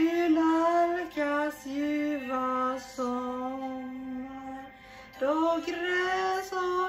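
A female voice singing a slow melody in long held notes, breaking off briefly near the end before the next phrase comes in.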